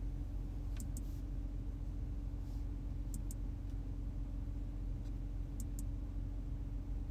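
Steady low hum inside the cabin of a 2022 Audi A8 L, with three pairs of short sharp clicks, one pair every two and a half seconds or so.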